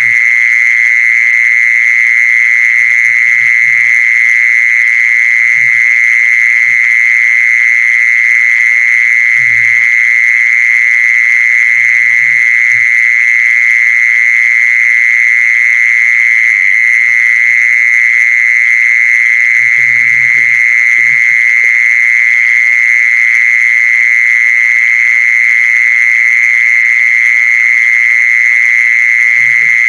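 A loud, steady high-pitched tone that never changes, with a few short, faint low sounds scattered through it.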